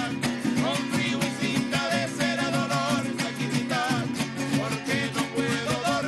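Men singing a Venezuelan folk song together, with wavering held notes, over briskly strummed cuatros.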